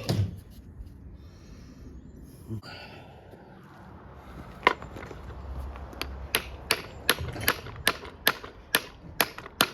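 Quiet handling noise, then from about halfway a run of about a dozen sharp metallic taps, two to three a second, like a small hammer tapping an engine part to free it.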